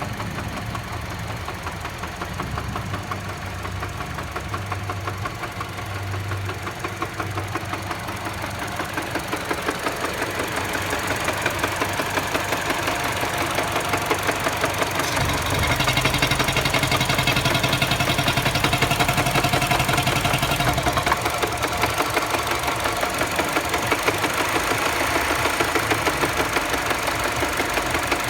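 Mini Cooper engine running with a rapid, even knocking. It grows louder over roughly the first fifteen seconds and then holds steady. The knock is the fault being diagnosed.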